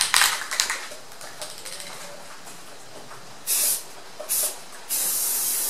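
Aerosol can of Rust-Oleum high-temperature engine primer spraying in short hissing bursts onto an aluminum intake manifold: a short burst about three and a half seconds in, a very brief one, then a longer one near the end. A brief clatter of clicks comes at the start.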